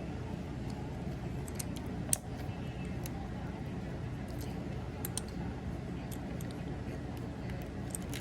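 Scattered small clicks of plastic parts and joints on a Transformers action figure being handled and moved, over a steady low hum; the sharpest click comes about two seconds in.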